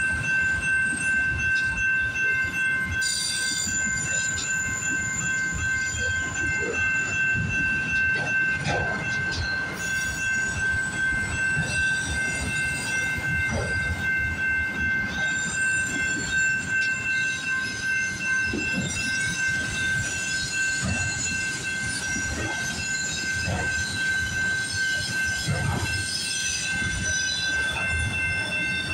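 Freight train of autorack cars rolling past at a level crossing, the wheels knocking irregularly over the rail joints and the crossing, with a steady high-pitched wheel squeal over it.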